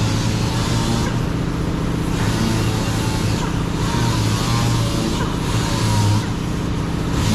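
A steady machine running with a low hum and a hissing top end, unbroken throughout.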